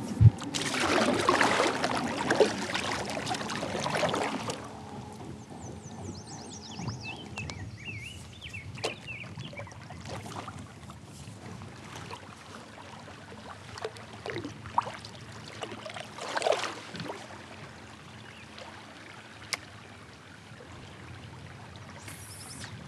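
Water splashing and trickling around a kayak as it is paddled downstream, louder for the first few seconds and then quieter, with a few soft knocks later on.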